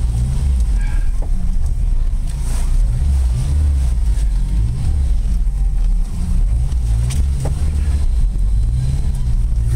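1995 Jeep Wrangler YJ engine running under way, its pitch rising and falling several times as it is throttled up and eased off.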